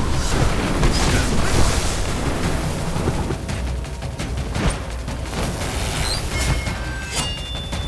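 Film soundtrack of music under deep booms and a string of sharp impact hits, with a steady low rumble.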